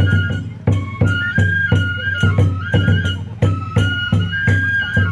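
Oniken-bai folk dance music: a transverse bamboo flute plays a high, stepping melody of held notes over a driving rhythm of taiko drum beats and small hand-cymbal strikes.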